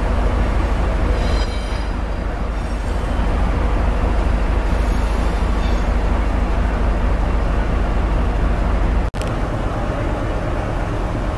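Diesel engine of a Hungarian-built D1 diesel multiple unit idling steadily with the train standing, a heavy low rumble, with a few brief high whines coming and going in the first half. The sound drops out for an instant about nine seconds in.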